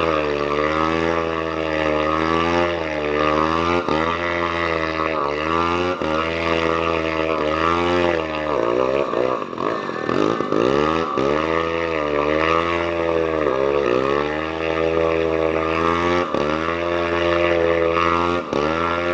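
Engine running unevenly, its speed sagging and picking up again about once a second, with one deeper dip about halfway through: it is close to coughing after getting water in it.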